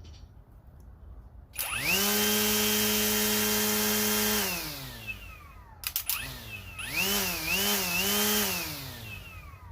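Kobalt cordless brushless string trimmer run twice: it spins up to a steady whine for a few seconds and winds down, then runs again with its speed dipping and rising twice on the trigger before spinning down.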